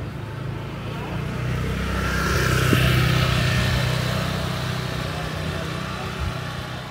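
A motor vehicle's engine passing close by on the street, getting louder to a peak about three seconds in and then fading away.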